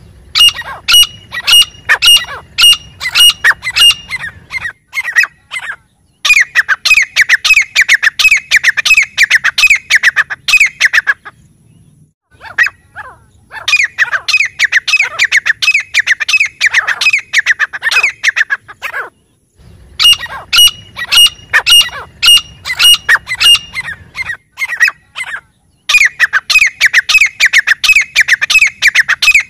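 Grey francolin calling: loud, shrill notes repeated several times a second in bouts of about five seconds, with short pauses between the bouts.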